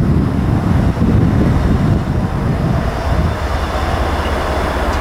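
DB class 363 diesel shunting locomotive running as it moves along the track hauling an electric locomotive: a steady low engine rumble that eases slightly about halfway through.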